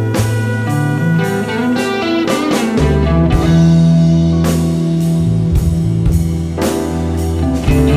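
Rock band playing an instrumental passage: electric guitar lead with a quick run of notes about two and a half seconds in, over held bass notes and a slow, steady drum beat.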